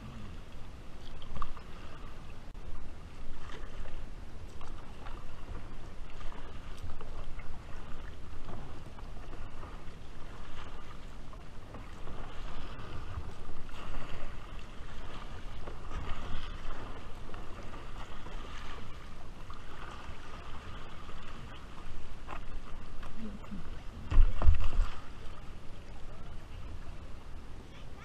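Kayak paddle strokes splashing in a shallow river, with water rippling around the hull and wind rumbling on the microphone. There is a louder low bump near the end.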